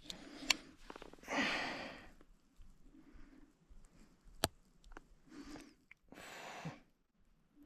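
A man's breathy, pained exhales through the mouth while he digs a deep cactus thorn out of his toe, two of them at about a second and a half and about six seconds in, with two sharp clicks between.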